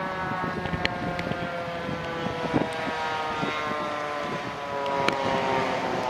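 Fire engine siren sounding, its many-toned wail falling slowly in pitch throughout.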